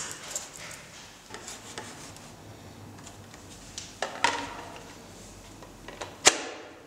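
Small metal magnets clicking as they are set down one by one on a turntable's black disc, with some light rubbing and handling. A few scattered clicks, a small cluster about four seconds in and the loudest, sharpest click a little after six seconds.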